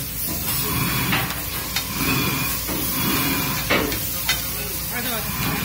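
Egg korma gravy sizzling on a large flat metal tawa while a metal spatula stirs and scrapes it, with sharp clacks of the spatula against the griddle every second or so, the loudest a little past halfway.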